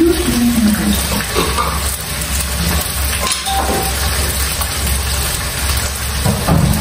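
Meat pieces frying in a steel wok over a lit gas burner: a steady sizzling hiss over the low rush of the flame.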